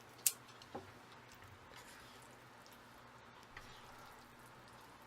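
Faint, wet close-up chewing of jjajang ramen noodles, with one sharp click just after the start.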